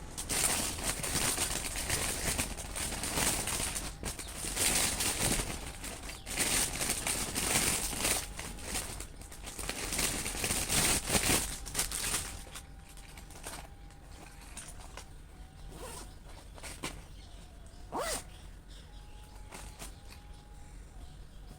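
Plastic gift packaging being handled and unwrapped, with crinkling and rustling in irregular bursts; the handling dies down about halfway through, leaving only occasional light clicks and rustles.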